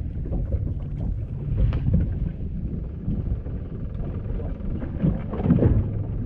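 Wind buffeting the microphone aboard a small fishing boat at sea: a steady, rough low rumble with a few scattered knocks.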